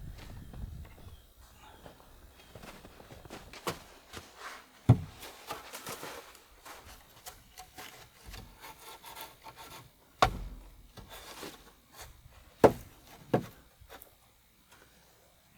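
Hand work on wood: scraping and rubbing, broken by four or five sharp knocks.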